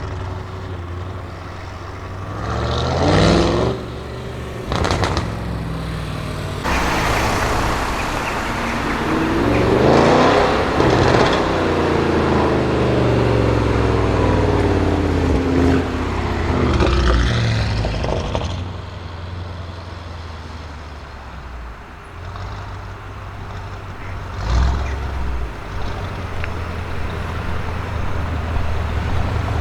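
Audi RS6 Avant C7's twin-turbo V8 through a Milltek exhaust: a quick rev about three seconds in and a sharp pop just after, then a long loud acceleration whose pitch rises and then falls as the car goes by. It then settles to a steady low run with a short blip near the end.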